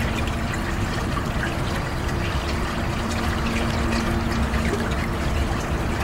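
A small stream trickling over stones: a steady, even sound of running water.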